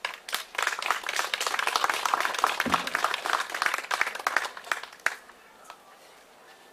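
Audience applauding: a crowd's clapping that starts just after the beginning and dies away about five seconds in.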